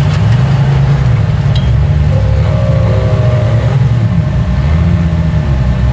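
Rock-crawling Jeep's engine running loud and deep, its revs rising and falling slowly as it crawls over boulders.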